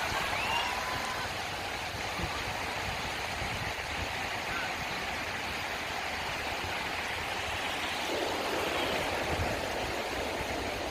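Small sea waves breaking and washing over shallow sand, a steady rush of surf that swells as a wave comes in about eight seconds in.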